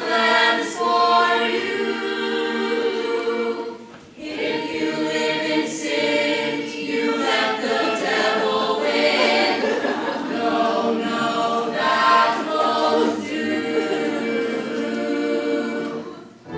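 Stage chorus of many voices singing together in harmony, a hymn-like choral passage; the singing breaks off briefly about four seconds in, then carries on.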